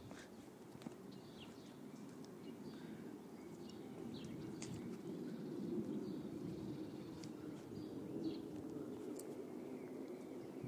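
Diesel pickup engine, a 1996 Ford F-350's 7.3-litre Power Stroke V8 turbodiesel, idling with a steady low clatter that grows louder about halfway through. A few birds chirp faintly.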